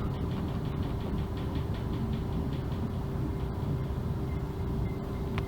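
Mugunghwa-ho passenger train running, heard from inside the carriage: a steady low rumble with a constant hum, a rapid ticking of about five a second over the first few seconds, and a single sharp click near the end.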